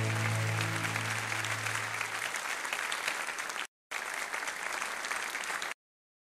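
Audience applause from a live song recording, over the last held note of the music fading out; the applause breaks off briefly partway through and then cuts off abruptly shortly before the end.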